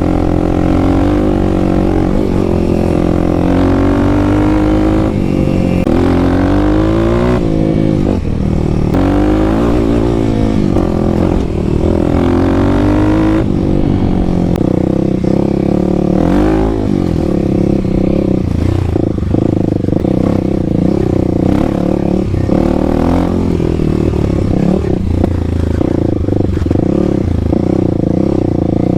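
Kawasaki KLX300's single-cylinder four-stroke engine breathing through a Barker's aftermarket exhaust while being ridden. Its pitch rises and drops repeatedly through gear changes in the first half, then holds steadier.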